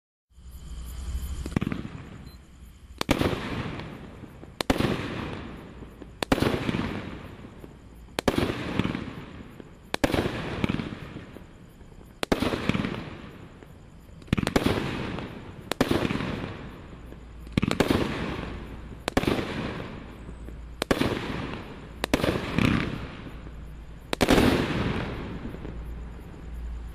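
A Brothers Fireworks 'Call The Shots' 16-shot, 350 g cake firing in sequence. There is a shot about every one and a half to two seconds, each a sharp bang followed by a fading tail.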